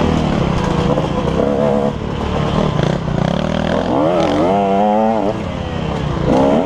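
KTM 150 XC two-stroke dirt bike engine revving hard as it is ridden, its pitch rising and falling as the throttle is worked, with a quickly wavering burst of revs about four seconds in and a sharp rise in revs near the end.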